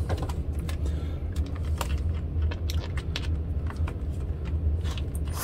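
Light clicks, taps and rattles of tools being handled while a drill is fitted with a Velcro polishing pad, over a steady low hum.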